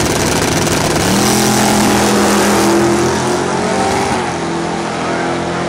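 Drag-racing mini pickup truck launching at full throttle and running down the strip. The engine's pitch climbs in about the first second, then holds high and steady as the truck pulls away.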